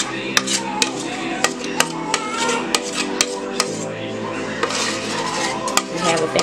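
A utensil clinking and scraping against a metal mixing bowl as cornbread batter is worked out into a bundt pan: repeated sharp clinks, about two a second, over background music.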